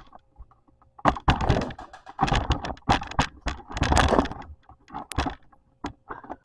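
Rustling and knocking of handling as the camera is carried, then a refrigerator door being opened, with clicks and clatter from things on its shelves and door racks.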